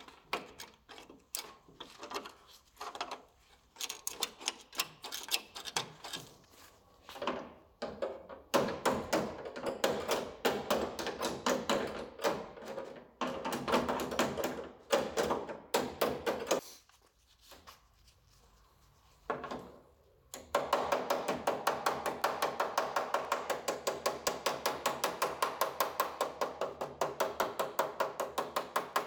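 Small hammer tapping on the steel body panels of a Citroën 2CV shell: irregular knocks with short pauses at first, then, about two-thirds of the way in, a fast, even run of taps.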